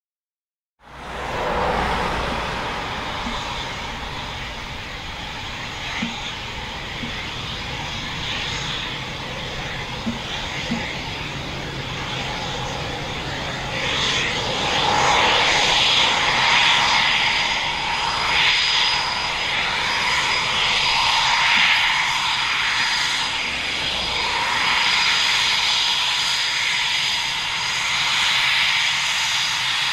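Eurofighter Typhoon's twin Eurojet EJ200 turbofan engines running on the ground at low power: a steady jet noise with a thin high whine through it. It fades in at the start and grows louder about halfway through.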